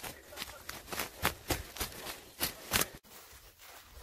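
Footsteps through undergrowth at a brisk walk, about three to four crisp steps a second. They stop abruptly about three seconds in, leaving a quieter stretch.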